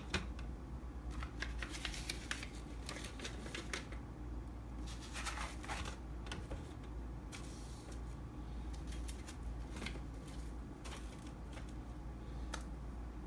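Grocery packages being handled and set down in a refrigerator: scattered rustles and light clicks and knocks.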